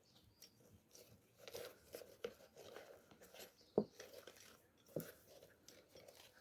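Faint scraping and crinkling of a shoe being handled, with two sharp clicks about four and five seconds in, as the metal shank inside it is set in place and squeezed with pliers.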